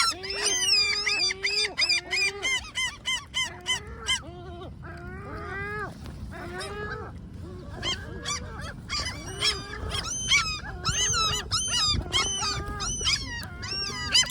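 Great black-backed gulls calling: many short, yelping calls from several birds, overlapping in quick succession, thinning out for a few seconds near the middle before picking up again.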